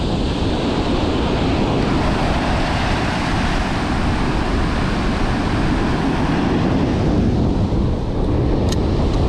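Strong wind buffeting the microphone over the steady wash of breaking surf. A short, high tick near the end.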